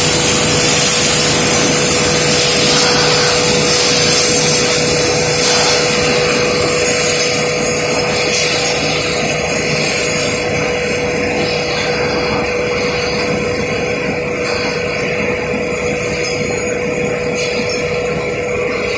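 Glass bottle production line machinery running: a loud, constant hiss with a steady hum, the hiss easing slightly about a third of the way in.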